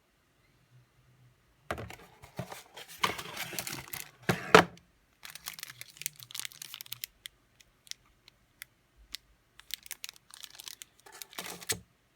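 Packaging being handled: irregular bursts of rustling and crinkling with scattered sharp clicks and knocks, in three clusters, the loudest knock about four and a half seconds in.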